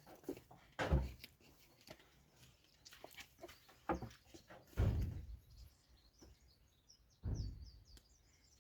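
About four dull thuds spread a few seconds apart, the loudest about five seconds in, with birds chirping faintly near the end.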